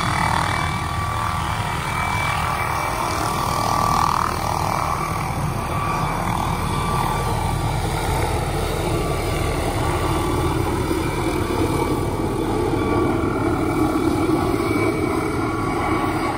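Small helicopter's turbine engine and rotor running as it lifts off and climbs away: a steady, rapid chopping rumble with a thin turbine whine.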